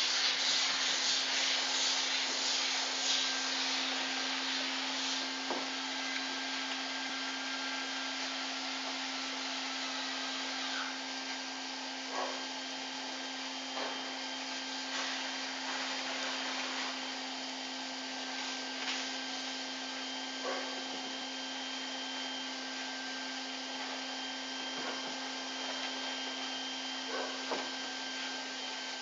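Ecowool (cellulose insulation) blowing machine running steadily: a constant hum under a rushing hiss of air and fibre, a little louder in the first few seconds, with a few faint scattered clicks.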